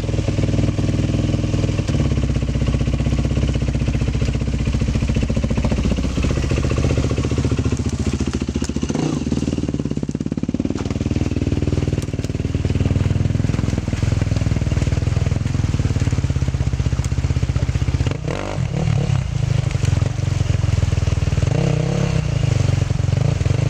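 Enduro motorcycle engine running at low revs, with a few short bursts of throttle, as the bike is worked up a steep rocky gully.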